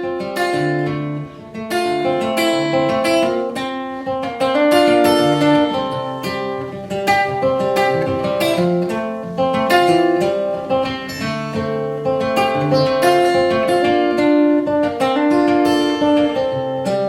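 Acoustic guitar played live, a picked pattern of single notes with some strummed chords, in an instrumental break between sung verses.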